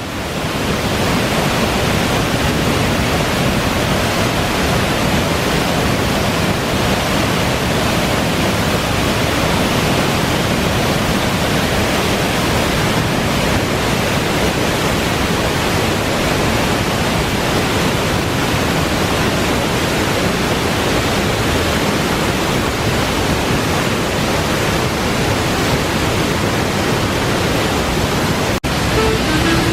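Waterfall pouring, a loud, steady rush of water with a momentary dropout near the end.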